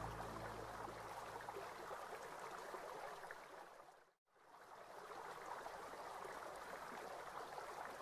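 Faint running water, an even rushing hiss, fading out to a moment of silence about four seconds in and fading back in.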